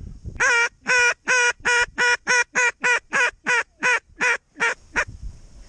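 A mallard-style hail call: a run of about sixteen loud, short, nasal quacks, a little over three a second, trailing off near the end.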